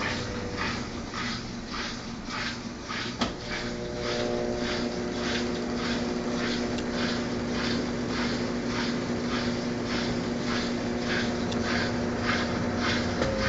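Brastemp Clean 10 kg washing machine in its spin cycle: a steady motor hum under a rhythmic swish that comes about twice a second as the drum turns. A single sharp click about three seconds in.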